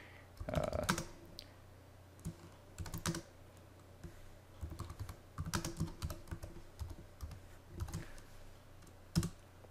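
Computer keyboard being typed on: keys clicking in short, irregular runs with pauses between them.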